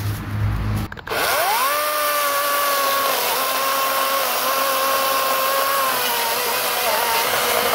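Greenworks 40-volt GMax brushless cordless chainsaw whining up to speed about a second in, then running steadily as it cuts through a log, its pitch dropping slightly under load near the end. A low rumble is heard before it and cuts off.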